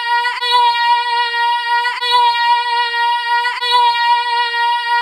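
A child's voice holding one long high sung note at a steady pitch, looped. The note restarts with a brief break about every one and a half seconds.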